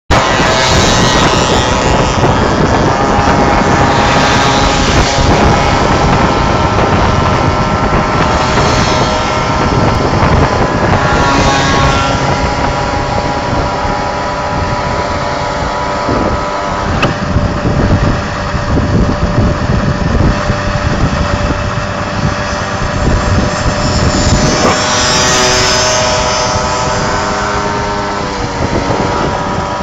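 Small two-stroke moped engines running steadily at cruising speed, heard from on board the filming moped, with wind rushing over the microphone.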